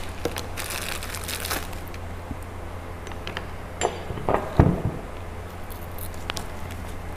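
Plastic packaging crinkling as a sanding backing pad is unwrapped, then a few light clicks and knocks as the pad and the angle grinder are handled, the loudest a thump about four and a half seconds in. A steady low hum sits underneath.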